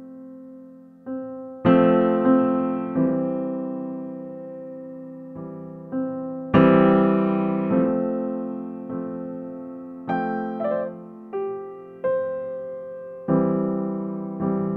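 Slow piano music: chords and single notes struck one after another and left to ring out.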